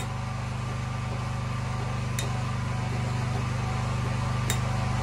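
Champion 4250-watt open-frame inverter generator's single-cylinder engine running steadily, with little change in its sound as a 250-watt heat lamp load is switched on and off. The lamp's switch clicks three times, about two seconds apart.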